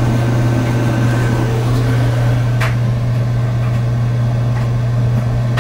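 A loud, steady low electrical hum from the battery-bank power system while it carries the clothes dryer's heating element, with a single sharp click about two and a half seconds in.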